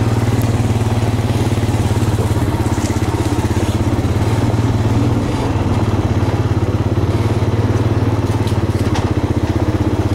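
Four-wheeler ATV engine running steadily as the machine rides along a dirt trail, heard from on board, with a few light clicks near the end.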